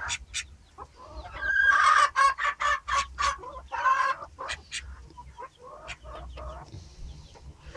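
Silkie chickens clucking in quick runs of short, sharp calls, busiest in the first half and sparser after.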